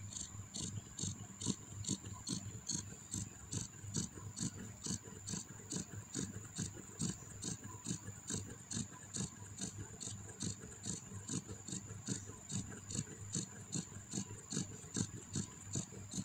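Newborn kittens suckling at their mother cat, a steady run of soft, even clicks about three a second.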